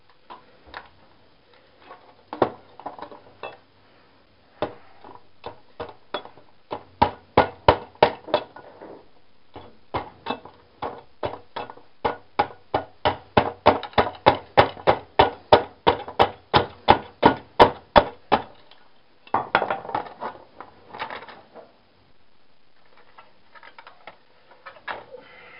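Repeated hammer blows on parts of a scrapped TV, in long runs of about three strikes a second, with a scraping rattle near the end.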